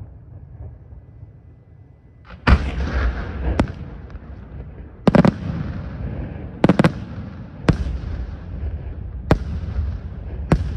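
Aerial firework shells bursting in a display. After a quieter first two seconds, about eight sharp bangs follow, spaced a second or so apart, with a low rumble carrying on between them.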